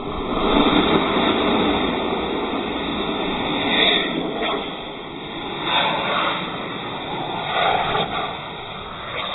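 Small model rocket car's motor burning, a steady rushing hiss that swells and fades a few times, mixed with wind on the microphone.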